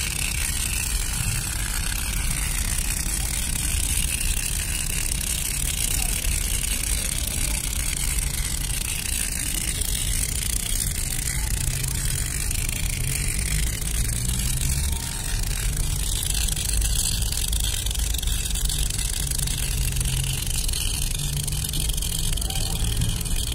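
Tyre-repair sealant aerosol can discharging foam through its hose with a steady hiss and a low rumble underneath, easing off briefly about fifteen seconds in.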